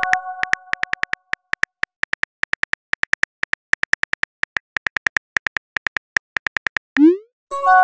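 Smartphone keyboard clicks of a text message being typed: quick, irregular taps, several a second. It opens on the fading tail of a chime. Near the end, a short rising whoosh and a chime mark the message being sent.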